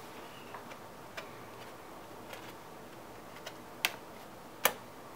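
Aluminium bottom cover of a 13-inch MacBook Pro being pressed down by hand, its clips snapping into place: a few faint clicks, then two sharp snaps near the end.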